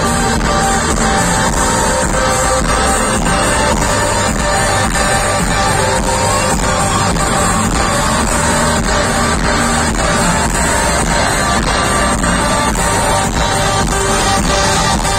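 Live pop music played loud over a stadium sound system, a sung song over a steady beat, heard from within the crowd.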